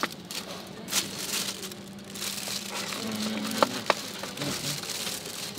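Paper fast-food bag crinkling and rustling as the food inside is handled, with two sharp clicks about two-thirds of the way through.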